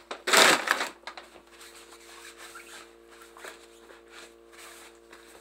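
Plastic crinkling and rustling from handling: a loud rustle about half a second in, then softer rustling, over a steady hum.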